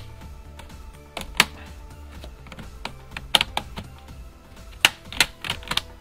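Plastic snap clips of an HP Pavilion 15 laptop's top case clicking loose as a guitar pick is pried along the seam between the upper and lower frames. There is a single sharp click about a second in, then a run of clicks from about three seconds on.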